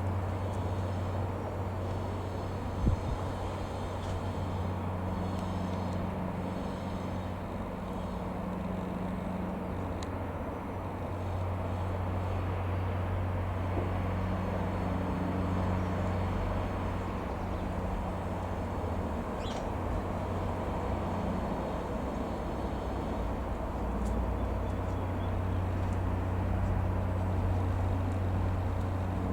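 Cessna 172M Skyhawk's single piston engine running steadily with a low hum, with one brief knock about three seconds in.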